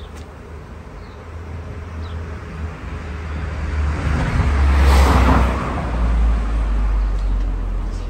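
A car driving past on the street, growing louder to a peak about halfway through and then fading, over a steady low rumble.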